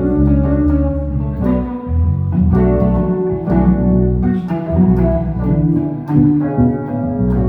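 Instrumental jam: guitar playing with a strong low bass part underneath, notes and chords changing every half second or so.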